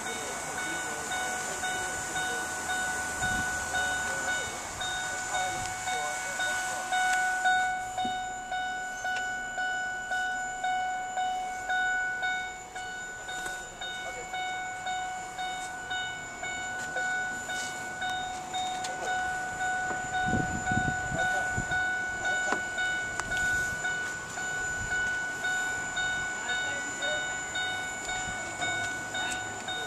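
Ford SVT Lightning pickup's electronic warning chime, dinging over and over at about two a second, as it does while the driver's door is open. A dull low thump comes about twenty seconds in.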